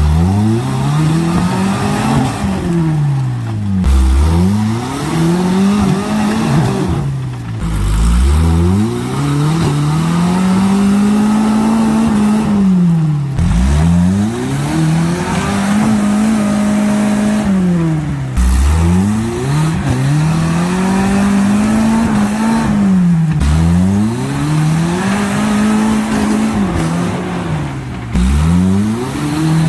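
Suzuki Samurai's engine revving hard again and again, its pitch dropping off and climbing back up about every five seconds, as the truck strains to climb a muddy creek bank.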